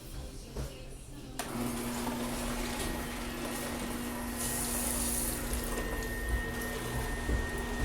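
Kitchen tap turned on about a second and a half in, then water running steadily into the sink.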